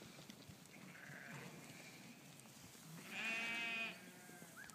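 White Dorper ewe bleating once, a loud, quavering call lasting about a second, starting about three seconds in. A fainter call sounds about a second in.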